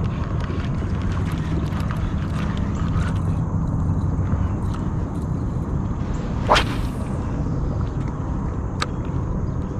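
A fishing rod whipped through the air in a cast, one sharp rising swish about two-thirds of the way in, followed a couple of seconds later by a short click. A steady low rumble runs underneath.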